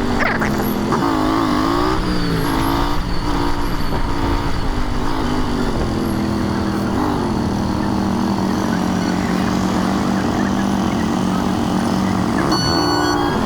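Royal Enfield Interceptor 650's parallel-twin engine under way on the road, its revs rising and falling over the first seconds, holding steady for several seconds, then changing again near the end, with wind rush. A short high beep sounds near the end.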